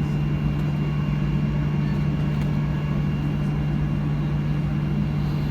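Steady cabin drone inside a Boeing 737-800 on the ground with its engines at idle, a constant low hum with a faint high whine above it and no change in pitch, before the take-off roll.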